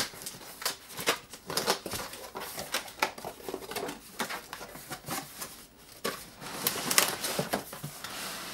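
Cardboard shipping box being opened by hand: flaps pulled apart and folded back, with irregular scraping, rustling and knocking of cardboard and a sharp knock at the start.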